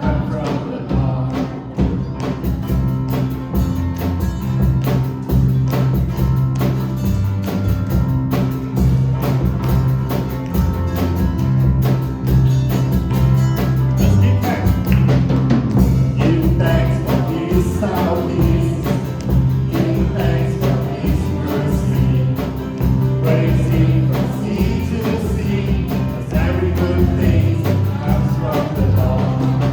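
Worship band music with a steady drum beat and held bass notes, with voices singing at times.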